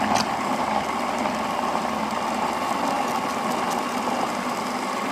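Electric blender motor running steadily, churning a thin semolina baghrir batter.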